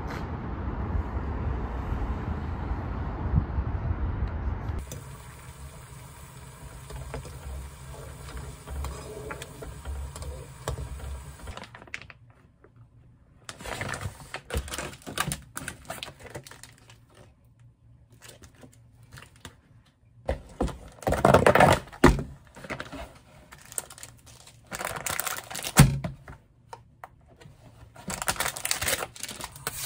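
Steady low rumble of city traffic for about five seconds. It cuts off into scattered clicks, taps and rustles of food packaging being handled on a counter: plastic-wrapped packs set down and a cardboard meal-kit box opened, with a louder flurry about two-thirds through and a sharp knock shortly after.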